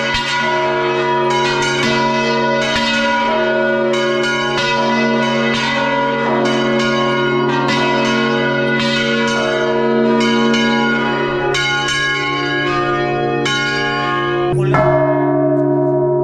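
Several large church bells are rung loudly, heard up close from inside the belfry, as a rapid peal of two or three strikes a second over a deep, sustained hum. About a second and a half before the end the strikes stop, and the bells' low hum rings on.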